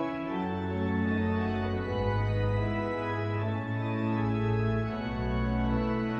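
Pipe organ playing sustained chords over a moving line of deep pedal notes, the bass note changing every second or so as the organist's feet play the pedalboard.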